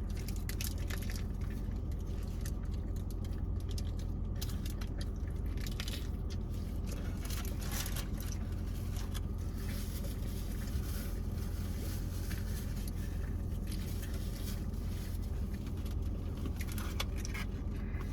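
Eating sounds: chewing with irregular crackles and rustles of fast-food packaging, over the steady low hum of a car.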